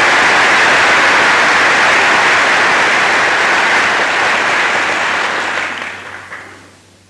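Large audience applauding on an old, hissy archival recording; the applause dies away near the end.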